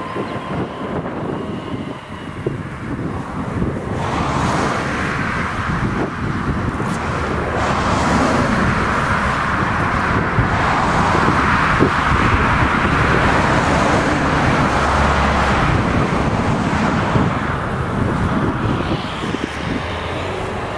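Claas Jaguar 970 forage harvester running under load, chopping whole-crop cereal for silage, with the tractor hauling the trailer alongside. The steady machine noise swells about four seconds in and stays loud, easing slightly near the end.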